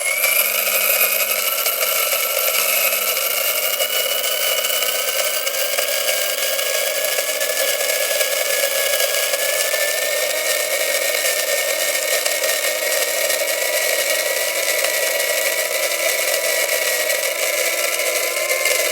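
Coffee grinder grinding beans: a steady, continuous grinding whine whose pitch rises slowly and evenly.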